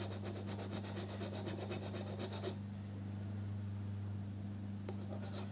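A small file rasping in quick short strokes on the cast-iron body inside the mouth of a Stanley 60 1/2 low angle block plane, stopping about halfway through. Metal is being taken off so the adjustable mouth plate will sit flat.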